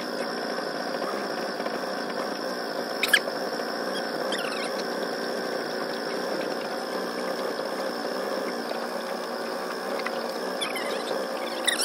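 Small boat motor running steadily with a buzz like a fly. A few short squeaks and chirps sound over it, one about three seconds in and several near the end.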